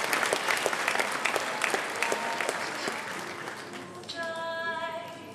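Audience applauding, the clapping thinning out over the first few seconds. About four seconds in, music starts with a held chord.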